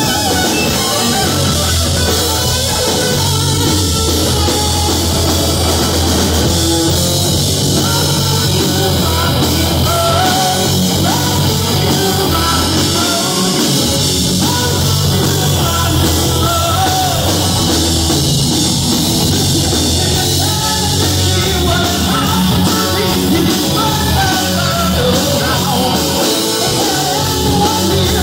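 A rock band playing live and loud: electric guitars, bass and drum kit, with a male voice singing over them.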